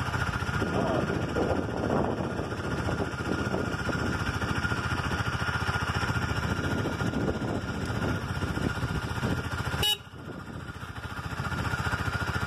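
Husqvarna Svartpilen 401's single-cylinder engine idling with a steady, even pulse. About ten seconds in, a click is followed by the engine sound dropping away sharply, and it comes back up within a second or two.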